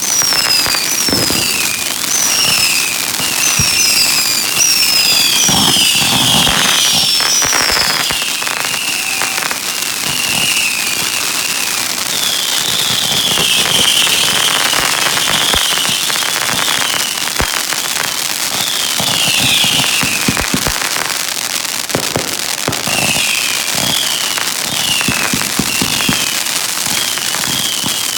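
Fireworks going off continuously: dense crackling and scattered bangs, with many short high whistles that each fall in pitch.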